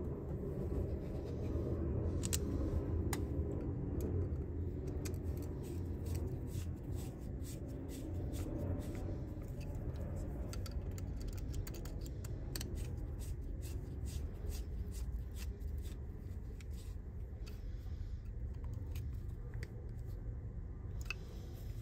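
Scattered small clicks and taps of plastic and metal parts being handled and fitted together on an Ulka EP5 vibration pump during reassembly, with a screwdriver touching its plastic fittings, over a steady low hum.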